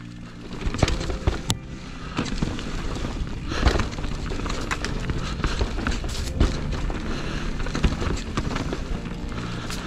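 Mountain bike riding fast down a dirt trail, heard from a camera mounted on the rider or bike: tyre and trail noise with the bike rattling, broken by irregular sharp knocks from hits over roots and bumps.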